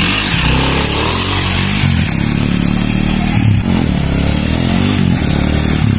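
Dirt bike engine being ridden with two riders aboard, its pitch rising and falling several times as the throttle is opened and eased.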